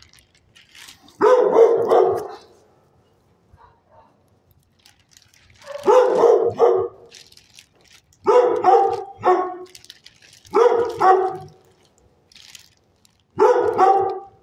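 Dog barking in five short bouts of two or three quick barks each, a few seconds apart.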